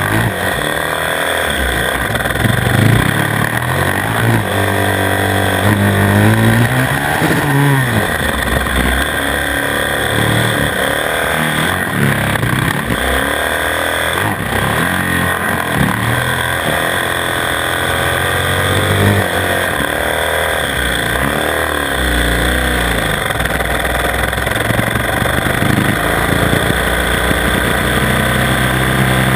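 Onboard sound of a 450 cc single-cylinder supermoto engine revving hard and dropping back again and again as the bike accelerates out of corners and brakes into the next.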